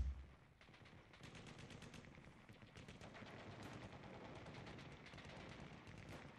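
Near silence with a faint, rapid, irregular clicking crackle; loud music cuts off at the very start.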